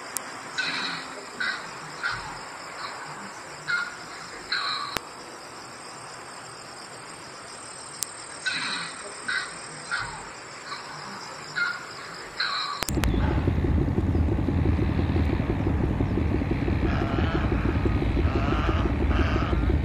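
Herons giving short harsh calls, a dozen or so spaced about a second apart, over a steady high drone of crickets or insects. About two-thirds of the way through, the sound cuts abruptly to a loud continuous low rumble, with fainter calls still heard above it.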